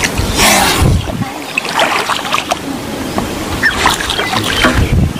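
Water splashing in several short bursts as an Indian spectacled cobra is hooked and lifted out of a pond, its body dragging through the surface.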